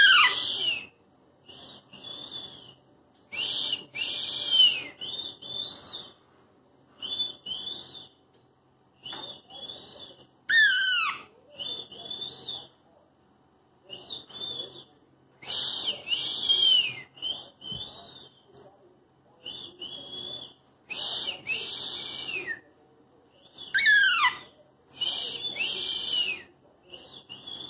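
Alexandrine parakeet calling: a string of short, shrill squawks and chattering calls every second or two. About ten seconds in and again near the end it gives a wavering whistle that falls steeply in pitch.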